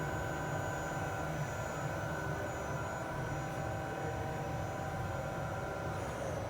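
Kia Turn 15 CNC lathe running, a steady machine hum and rumble with several high whining tones on top. About six seconds in the whine changes, one tone sliding lower as the spindle speed shifts.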